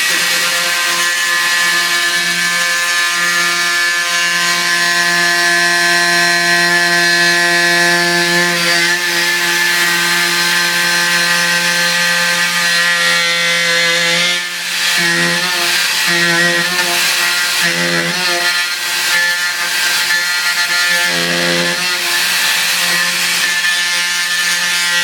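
Handheld power tool motor running with a steady buzzing hum while cutting into a drywall wall. About halfway through it stops and restarts in several short bursts.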